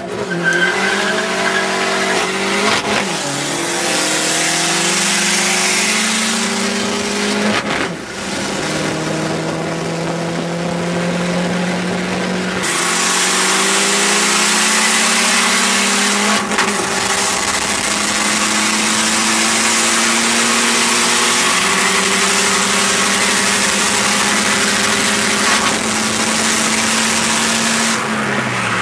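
Two cars racing side by side at speed, heard from inside one car's cabin. Engines pull hard, their pitch climbing slowly and dropping back at several gear changes, under a loud rush of wind that grows stronger about halfway through.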